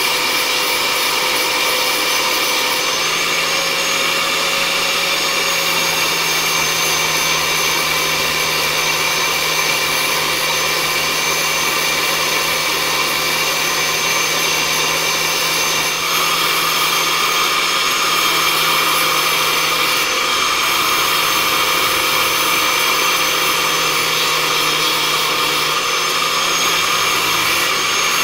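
An electric motor running steadily with a high whine, its pitch and loudness shifting slightly about halfway through.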